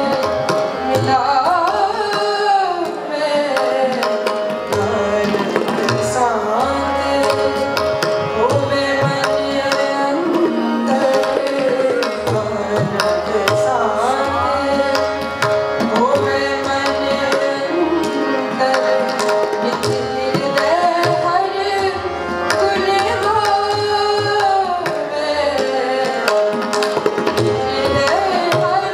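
Sikh kirtan: harmonium chords held under a woman's voice singing a shabad, with tabla playing a steady rhythm throughout.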